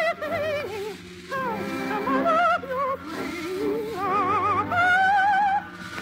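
Operatic soprano voice singing an operetta song with a wide vibrato, over musical accompaniment. In the second half it climbs to long held high notes.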